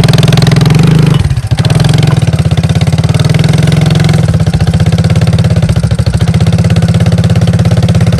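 Engine of a 1993 Suzuki QuadRunner 4WD ATV (single-cylinder four-stroke) running loud and close, with a fast, even firing pulse, as the quad is ridden up loading ramps into a pickup bed. Its sound dips briefly about a second in, then it keeps running steadily.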